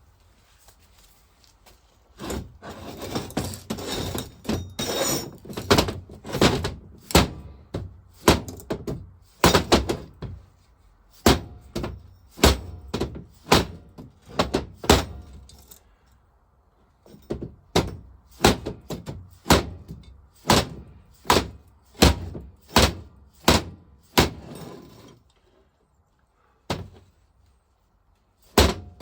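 Repeated hammering blows, about two a second with a short pause partway, struck on a cast vaporiser body to knock loose a seized brass insert.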